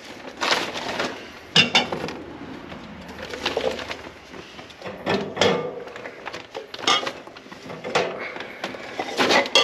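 Ceramic plant pots being handled in a wire shopping cart: irregular knocks and clinks against the metal mesh, with rustling.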